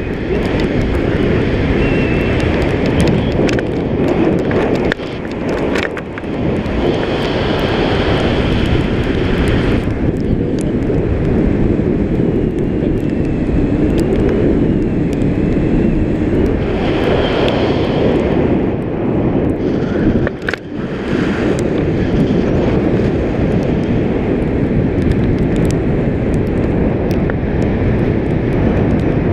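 Wind from a paraglider's forward flight buffeting the microphone of a pole-mounted action camera: a loud, steady rumbling rush that briefly drops a couple of times.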